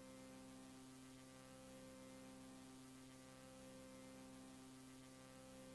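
Near silence: dead air with a faint, steady hum.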